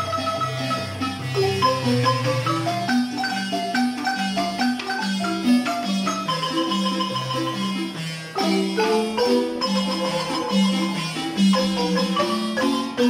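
A large wooden marimba played by several players at once: a bouncing bass line under chords and a melody, some melody notes held by fast repeated strokes, in a steady dance rhythm.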